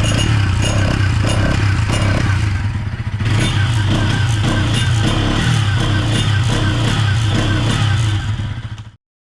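Bajaj NS200's single-cylinder engine running, its exhaust note broken by a stream of sharp clicks, which the owner puts down to a timing chain issue. The sound dips briefly about three seconds in, then carries on until it cuts off abruptly near the end.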